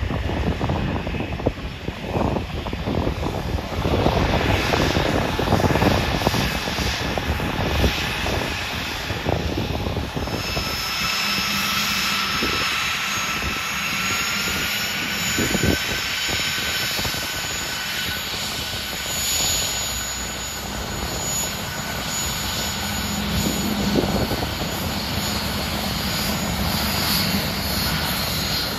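Embraer ERJ-145 regional jet taxiing, its two rear-mounted Rolls-Royce AE 3007 turbofans running at taxi power. The engine noise is at first a broad, gusty rumble. From about ten seconds in, a steady high turbine whine stands out, rising slightly in pitch a few seconds later.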